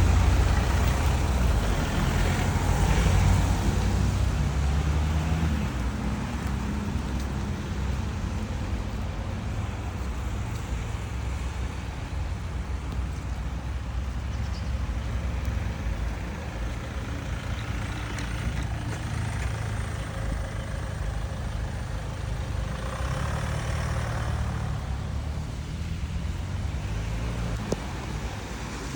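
Road traffic on a wet road, with a steady hiss of tyres on wet pavement. A heavier vehicle rumbles past in the first few seconds, and another swell of passing traffic comes about twenty seconds in.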